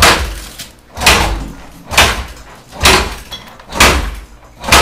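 Kawasaki KLR dirt bike being kicked over again and again, a thump with each stroke of the kick-starter about once a second, and the engine never catches. The riders blame fuel not getting through to the engine.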